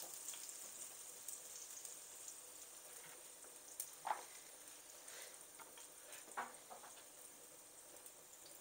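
Chopped garlic frying in hot coconut oil with mustard seeds in a nonstick pan, cooking until it browns: a faint, steady sizzle with a few small crackles.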